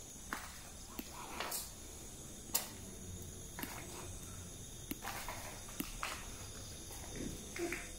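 Irregular footsteps scuffing and crunching on dry ground, with a steady high-pitched drone of insects such as crickets underneath.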